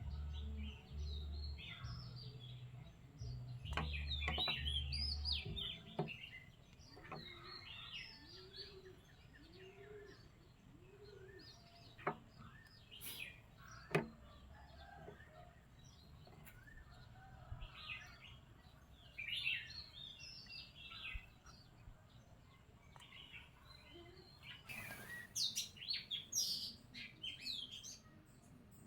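Small birds chirping and twittering throughout, with a few low dull thuds in the first five seconds and two sharp clicks about 12 and 14 seconds in.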